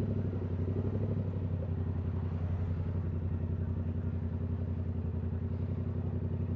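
Yamaha R7's 689 cc parallel-twin engine idling steadily, with a fast, even exhaust pulse.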